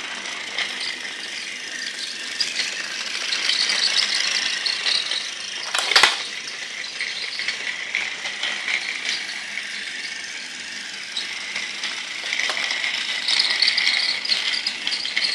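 Battery-powered Thomas the Tank Engine toy train running along plastic track: a steady high motor whir with the wheels and cars rattling, louder twice as it goes round. One sharp knock about six seconds in.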